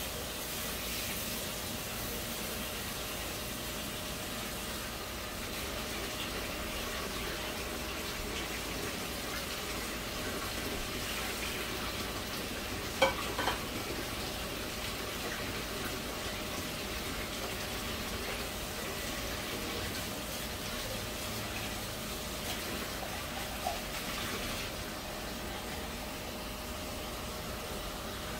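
Shrimp and potato curry simmering in a nonstick frying pan on a gas burner: a steady bubbling hiss, with one sharp clink about halfway through and a fainter one later.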